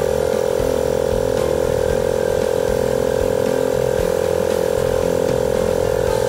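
Portable piston air compressor (car tyre inflator) running steadily, its motor and piston making a loud, fast, even chugging buzz as it pumps up a car tyre.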